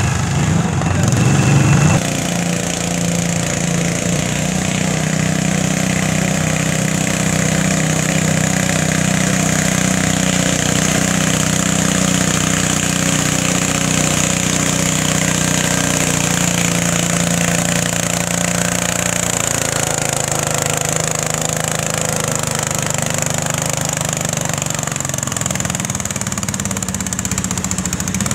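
Small garden tractor engines running hard under load while pulling a weight-transfer sled, a loud steady drone. The sound changes abruptly about two seconds in.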